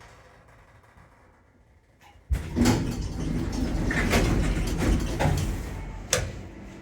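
Becker lift doors sliding open: a sudden clunk about two seconds in, then a few seconds of rattling and rumbling from the door gear, with a sharp knock near the end as they stop.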